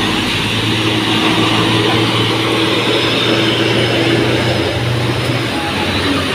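Heavy diesel trucks driving past close by: a steady engine drone with the hiss of tyres on wet asphalt, the drone fading about five and a half seconds in.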